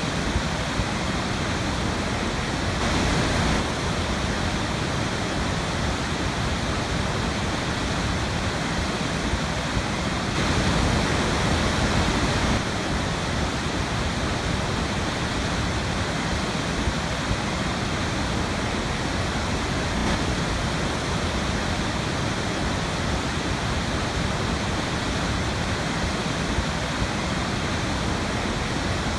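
Small river waterfall, water pouring in a steady, even rush, swelling a little twice: about three seconds in and again around ten seconds in.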